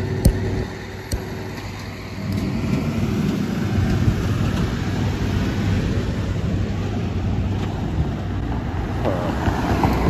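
Road traffic on a city street: cars driving past, with a low engine hum that fades within the first second and traffic noise swelling again from about two seconds in. A sharp click sounds about a quarter second in.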